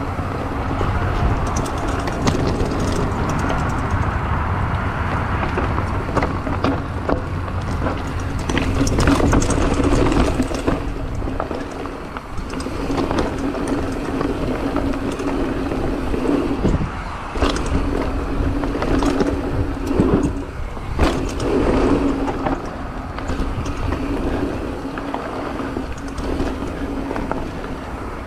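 Mountain bike riding fast down a rocky dirt trail: tyres rumbling over stones and dirt, with frequent sharp knocks and rattles from the bike as it hits rocks and bumps, and wind rushing over the microphone.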